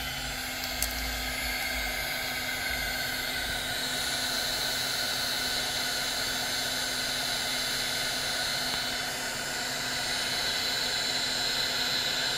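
Cordless heat gun running steadily, its fan blowing hot air onto heat-shrink tubing on a lamp cable to shrink it, a steady rushing noise with a faint low hum.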